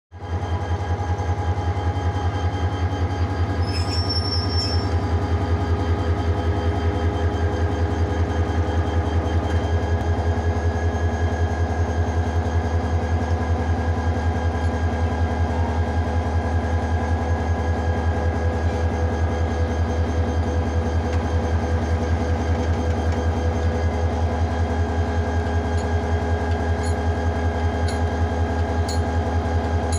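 Diesel-electric locomotive engine running steadily at close range: a deep, fast-pulsing throb with several steady tones above it. A brief high squeal comes about four seconds in.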